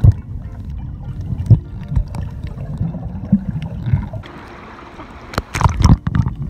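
Muffled underwater sound from a waterproof camera held under the sea: a low rumble of moving water with scattered knocks and gurgles, then louder splashing near the end as the camera comes up to the waterline.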